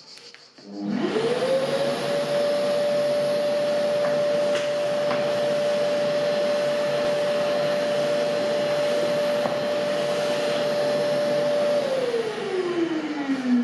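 Festool workshop dust extractor switching on about a second in and running with a steady whine while its hose nozzle vacuums the board. Near the end it is switched off and the motor winds down with falling pitch.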